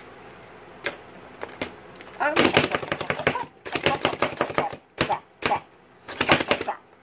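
Hand-pressed plunger food chopper mincing garlic cloves. A few single clicks, then about 2 seconds in four bursts of rapid clacking as the plunger is pumped and the blades chop.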